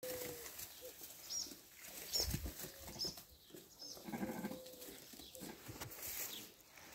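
A sheep gives a short bleat about four seconds in, over rustling in tall grass and a few low thumps. A small bird chirps high and briefly four times at an even pace in the first half.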